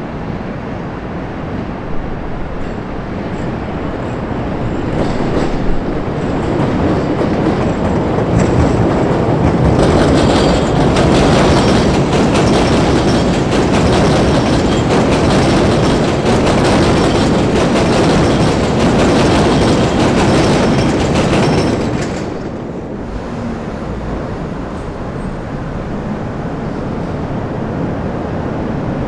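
CTA 'L' rapid-transit train running over the elevated steel structure and through the junction's switches, growing louder as it approaches, then passing close with a dense clickety-clack of wheels on rail joints and crossings. About three-quarters of the way in the sound drops off suddenly to a quieter steady rumble.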